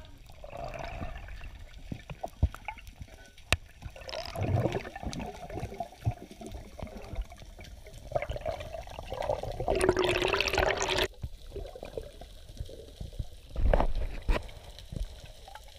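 Muffled underwater water noise on an action camera in its housing: irregular rushing and bubbling with scattered small clicks, and a louder rush of water about ten seconds in.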